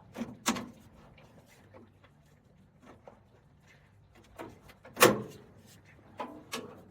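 Sharp knocks and clunks from prying a car door's window glass back while new seals are fitted: two near the start, a few light taps, a loud knock about five seconds in, and two more near the end.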